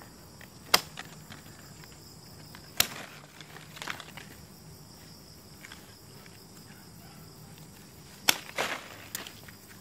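Hand pruning shears snipping mangosteen twigs: three sharp snips, about a second in, near three seconds and near the end, with a few lighter clicks between them.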